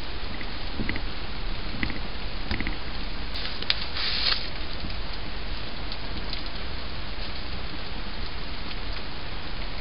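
Spoons stirring thick corn mash in a stainless steel stockpot: a few light knocks and scrapes against the pot, and a sharper scrape lasting about a second some three and a half seconds in, over a steady hiss.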